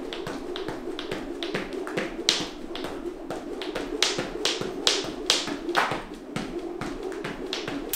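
Jump rope slapping the floor on each turn: an even run of sharp taps, about two to three a second, over a steady hum.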